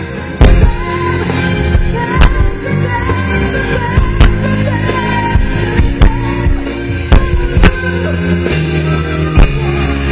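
Live pop music from a band and PA, loud, with a woman singing over it. About eight sharp clicks cut through the music at irregular moments.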